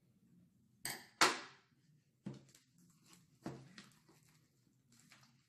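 A metal spoon and a plastic bowl of half-made slime being handled: a few sharp clicks and knocks, the loudest a pair about a second in, with quieter handling noise as the slime is scooped out by hand.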